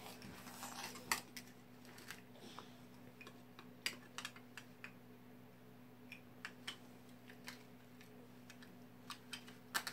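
Faint, scattered clicks and taps of plastic toy food pieces and a plastic toy knife being handled and knocked together, over a low steady hum.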